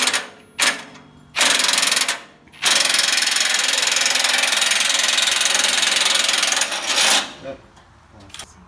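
A ratcheting tool working a stuck tractor fender bolt: a few short, sharp rattles, then one steady, rapid clatter lasting about four seconds that stops suddenly.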